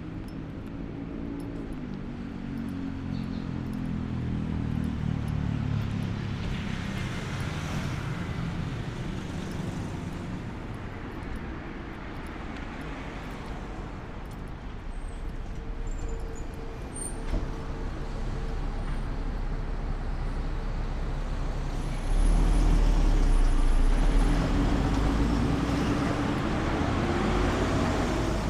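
Road traffic on a city avenue, with car and bus engines passing. At the start one engine falls in pitch. Near the end a louder, deep low rumble comes in suddenly and an engine rises in pitch.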